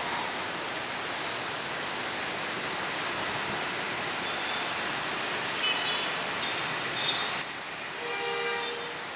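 Steady hum of busy city street traffic, with cars, motorbikes and a BRT city bus moving past. A few brief high-pitched toots come midway, and about eight seconds in a vehicle horn sounds for under a second.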